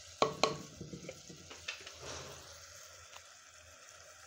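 Onion, tomato and spice masala frying and sizzling in oil in a pot just after a little water was added. Two sharp knocks in the first half second, then a few lighter clicks over the steady sizzle.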